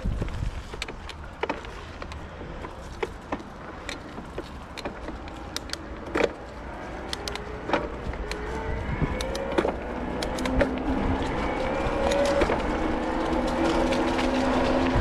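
Bicycle riding along a trail: low wind rumble on the microphone and frequent sharp clicks and knocks from the bike over the path. From about seven seconds in, a hum that rises in pitch joins in and gets louder toward the end.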